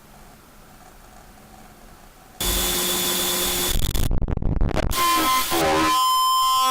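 Faint low hum, then about two and a half seconds in a sudden loud burst of harsh, distorted electronic noise. It cuts out briefly, then turns into wavering tones that settle into several steady high-pitched tones.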